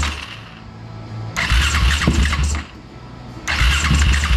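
Suzuki LTR450 quad's single-cylinder engine cranked on the electric starter in separate bursts without catching: one burst ends right at the start, another runs about a second and a half in, and a third begins near the end.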